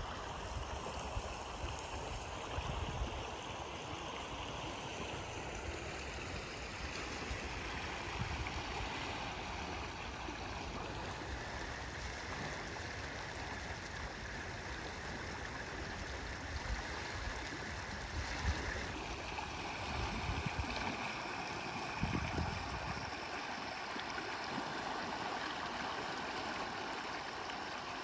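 Sutlej River in flood, its fast water rushing and churning in a steady noise. Low, irregular gusty rumbles sit underneath.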